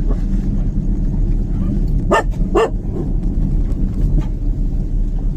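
A dog barking twice in quick succession about two seconds in, over a steady low rumble.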